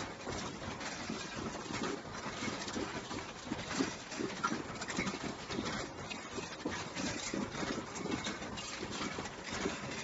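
Mechanical punch presses stamping sheet-metal fan parts: a run of irregular knocks and clanks, a few every second, from several machines at once over a steady machine noise.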